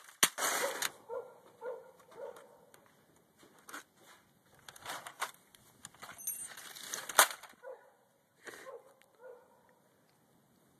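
Sledgehammer blows on the wrecked plastic shell of a Compaq Presario laptop: a few scattered sharp cracks and clatters of breaking plastic, the loudest about seven seconds in.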